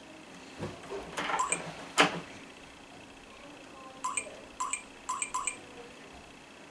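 Smart deadbolt touch keypad beeping as a passcode is entered: a sharp click about two seconds in, then four short beeps in quick succession around the four-to-five-second mark.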